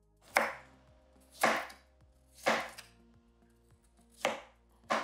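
Kitchen knife dicing a peeled cucumber on a plastic cutting mat: five cuts, roughly one a second.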